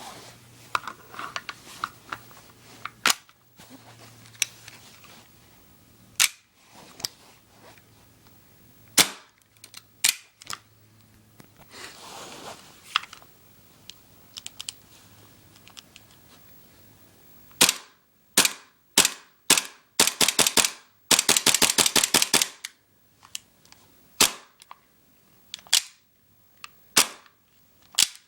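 WE Hi-Capa 5.1 CO2 gas blowback airsoft pistol firing, each shot a sharp crack with the slide cycling. Single shots come a second or more apart, then a fast string of about fifteen shots in under two seconds about two thirds of the way through, then single shots again.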